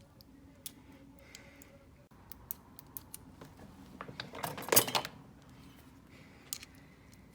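Small metal clicks and scrapes of a shim being worked into a pin-tumbler cabinet lock by hand, with a quick cluster of sharper clicks about four to five seconds in.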